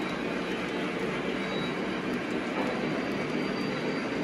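Model train running along the layout track, a steady rolling rumble with no break.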